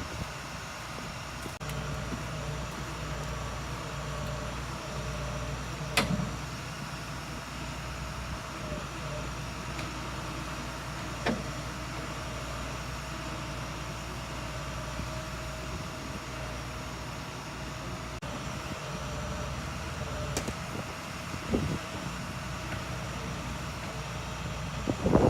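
A tow truck's engine running steadily, with a few sharp knocks or clanks scattered through, the loudest about six seconds in.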